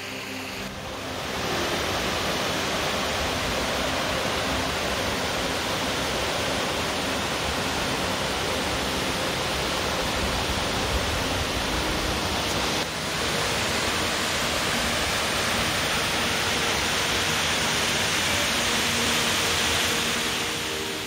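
Mountain waterfall and rocky creek: a steady, full rush of falling and tumbling water. It comes in about a second in as music fades.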